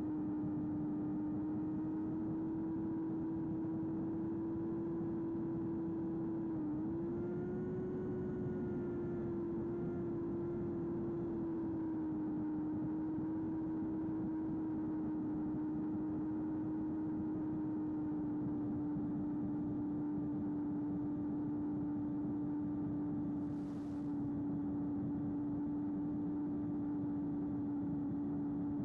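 Electric motor and propeller of a small FPV flying wing running at a steady cruise, a constant hum over rushing noise. The pitch dips and then rises briefly about seven seconds in, and settles a little lower a few seconds later.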